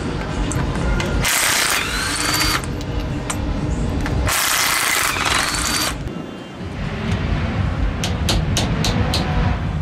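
A power tool run in two short bursts, each with a whine that rises and then holds as the motor spins up, followed by several sharp metallic clicks near the end.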